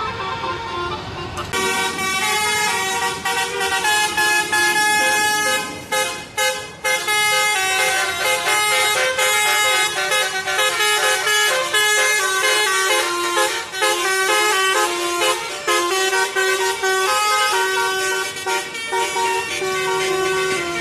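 Tour bus's 'telolet basuri' multi-tone musical horn playing a fast melody of stepping notes, with some notes held longer near the end.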